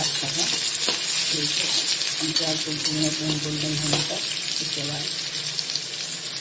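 Chopped onions sizzling in hot mustard oil in an iron kadhai, with a steady hiss. A slotted metal spatula stirs them, knocking against the pan a few times.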